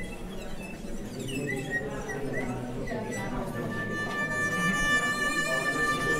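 Solo violin improvising: short sliding phrases, then a long held note from about halfway through.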